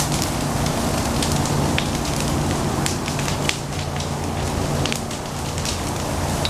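Large open fire burning through tarps, a tent and debris, crackling with frequent sharp irregular pops over a steady low rushing noise.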